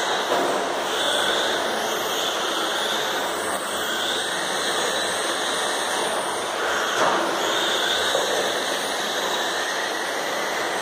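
Several radio-controlled racing cars running on an indoor carpet track: their motors whine, rising and falling in pitch as they accelerate and brake, over a steady hiss of tyres and motors.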